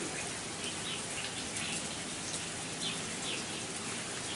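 Heavy rain falling, an even steady hiss, with a few short high chirps over it.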